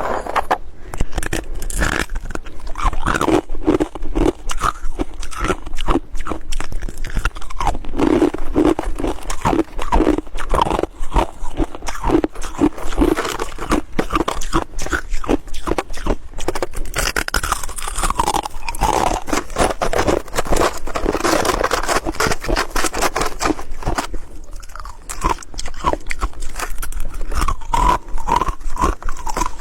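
Close-miked crunching and chewing of white hard and soft flaky ice: a dense run of rapid crisp crunches and bites with no pauses.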